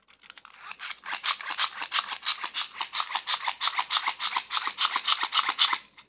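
Hand-crank dynamo flashlight being wound: the plastic crank and gears give a rapid, even rasping whirr of about four or five strokes a second, which stops just before the end.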